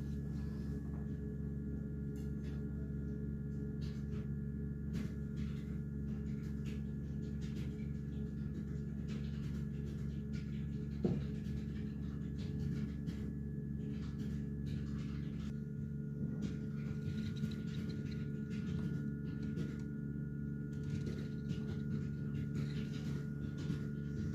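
A steady low hum with a few faint clicks, and a single soft knock about eleven seconds in.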